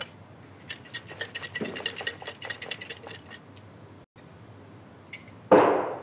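Folded paper ballots being shaken in a container: a quick rattling run of light clicks lasting about two and a half seconds. A few small clicks follow, then a short, louder rustle near the end.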